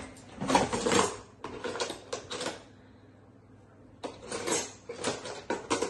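Rummaging among small hard objects: clinks and rattles in two spells, with a quiet gap of about a second and a half between them.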